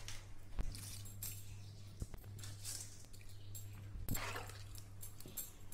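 Soaked basmati rice going into a pot of boiling water and masala: faint bubbling and hiss with a few light clicks, over a steady low hum.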